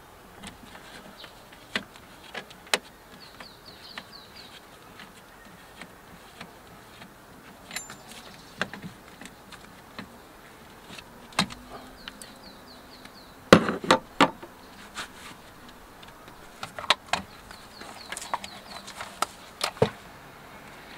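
A 10 mm wrench undoing the positive terminal clamp of a car's 12 V battery: scattered metallic clicks and knocks, with short runs of rapid fine ticking and a louder clatter about thirteen to fourteen seconds in.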